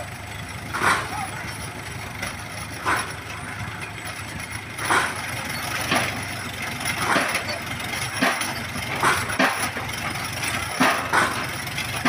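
Engine-driven winch of a piling rig running steadily, with repeated sharp metallic clanks about every one to two seconds that come closer together in the second half.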